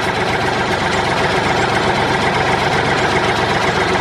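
Tractor engine running steadily at idle.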